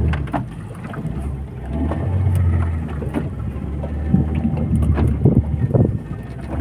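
Wind buffeting the microphone aboard a small boat at sea, in uneven gusts over a low steady hum, with scattered small knocks.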